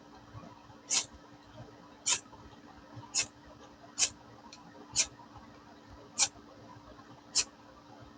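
Ferro rod on a magnesium fire-starter block struck with a knife's square spine: about seven short, sharp scrapes, roughly one a second, throwing sparks onto tinder that has not yet caught.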